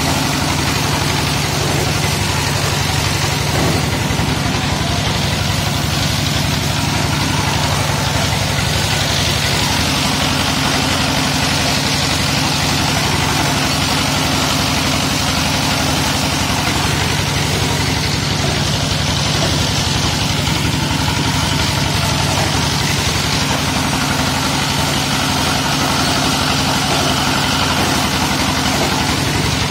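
Single-cylinder stationary diesel engine running steadily at constant speed, belt-driving a rice threshing machine while rice stalks are fed in. A loud, even mechanical drone with a fast regular beat underneath.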